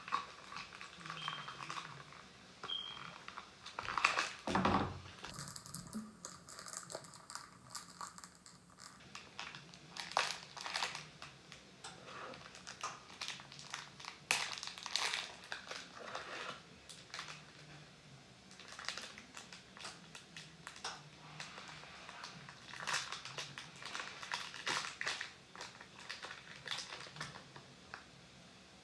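Crinkling and rustling of snack packaging being opened and handled, with irregular small crackles and clicks. A louder knock comes about four seconds in.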